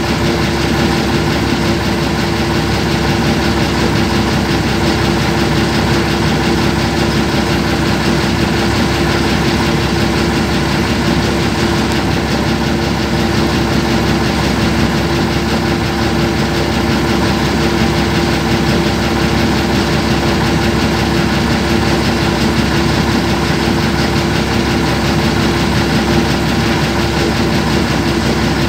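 Diesel engine of heavy construction machinery running at a steady idle, with a constant drone and no strikes or changes.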